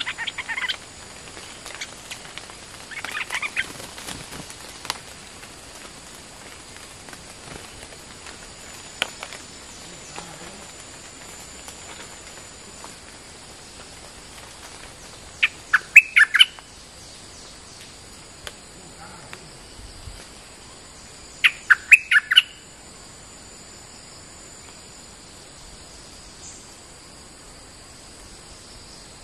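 Stripe-throated bulbul singing short bubbly phrases of several quick notes: one at the start and one about 3 s in, then long pauses, with the loudest phrases about 16 s and 22 s in. A faint steady high-pitched hum runs underneath.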